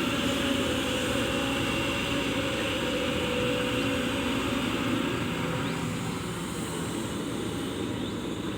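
Kobelco excavator's diesel engine running steadily at working speed, a continuous even drone with no breaks.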